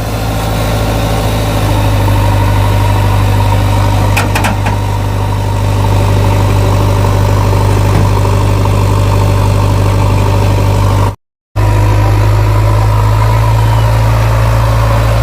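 Heavy diesel machine engine running steadily at an even idle, with a few sharp knocks about four seconds in. The sound cuts out completely for a split second about two-thirds of the way through.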